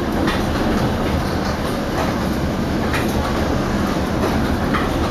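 Vintage electric streetcar running along its rails, heard from inside the car: a steady rumble with a few sharp clicks from the wheels on the track.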